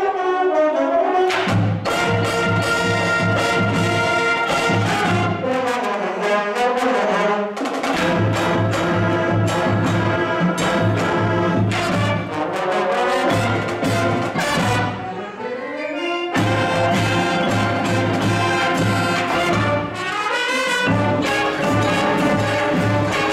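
Marching band of brass and percussion playing a loud up-tempo piece: full brass chords over a pulsing low beat, with several sweeping runs in pitch.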